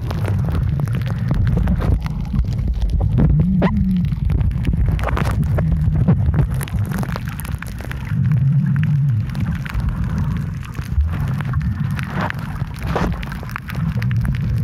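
Underwater sound picked up by a camera held below the sea surface: a dense low rumble of water moving around the housing, with frequent crackling clicks and pops throughout.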